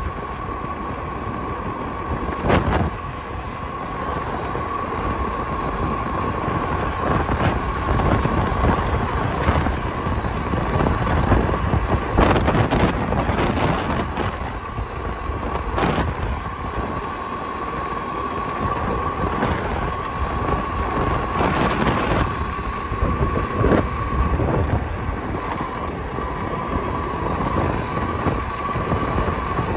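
Talaria electric dirt bike riding along, its motor giving a steady high whine over wind rush and tyre noise on wet tarmac. There are a few short knocks as it rolls over bumps and paving joints.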